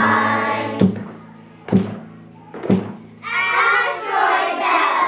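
A group singing over an acoustic guitar ends the line "What am I?", followed by three sharp thumps about a second apart. Then a crowd of children shout the answer together: "The Asteroid Belt!"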